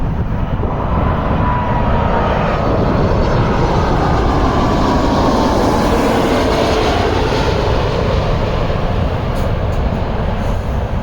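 Jet airliner on landing approach passing the microphone: its engine noise swells to a peak in the middle and eases off, with faint whining tones that slide down in pitch as it goes by.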